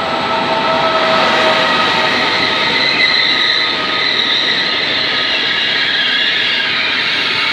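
Regional passenger train hauled by a Trenitalia E464 electric locomotive rolling past along the platform: a steady, loud rolling rush of the coaches with high squealing tones from the wheels.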